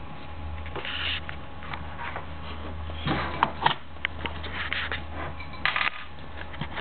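Scattered light clicks, taps and rubbing of plastic Play-Doh tools and pots being handled on a table, over a steady low hum.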